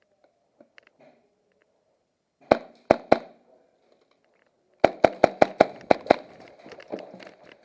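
Airsoft guns firing: three quick shots, then after a short pause a fast string of about seven shots.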